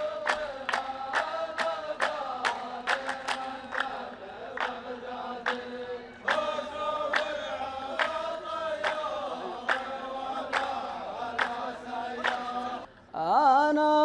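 A row of men chanting in unison, repeating the poet's last verse in the style of a Saudi qalta poetry duel, with hand claps in steady time, about three a second. Near the end the chorus stops and a single male voice starts singing the next verse.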